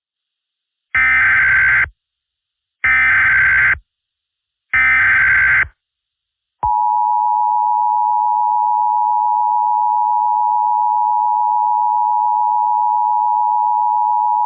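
Emergency Alert System alert opening. First come three roughly one-second bursts of SAME header data tones, about a second apart. Then the EAS two-tone attention signal, a steady dual tone just under 1 kHz, is held for about eight seconds. Together they announce that an emergency alert message follows.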